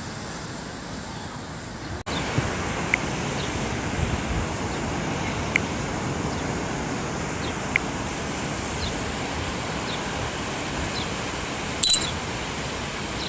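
Steady wash of ocean surf and wind noise, with a sudden break about two seconds in and a brief high-pitched chirp near the end.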